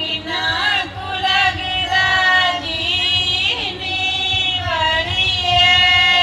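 A woman singing a Punjabi folk song into a microphone, drawing out long notes with a wavering, ornamented pitch and ending on a long steady held note.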